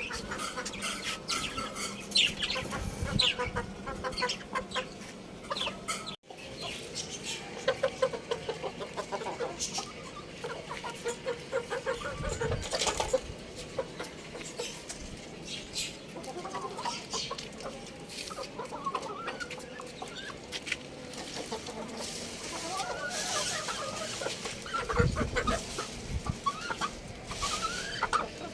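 Young rooster and other chickens clucking and chirping in many short, repeated calls, with a brief break about six seconds in.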